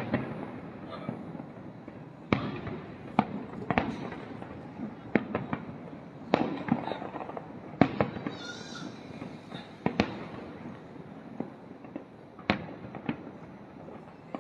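Aerial fireworks bursting, sharp bangs at uneven intervals, roughly one or two a second, over a continuous crackle, with a short fizz about eight seconds in.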